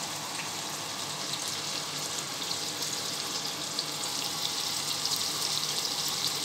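Sliced onions sizzling in a stainless-steel pot on the stove, a steady crackle that gets a little louder toward the end.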